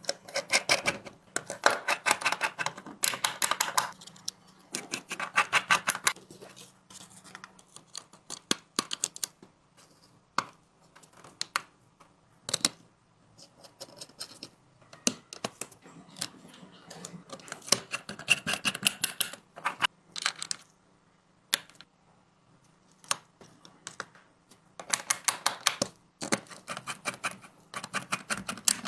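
Small hard clicks and taps of hand tools and parts during a phone repair. They come in rapid bursts of many clicks, separated by scattered single clicks and short quiet gaps.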